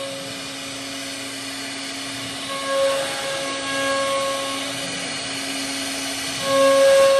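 CNC router spindle cutting into a wood panel: a steady high-speed whine over a rushing hiss. The whine swells louder a few times as the bit bites deeper, most strongly near the end.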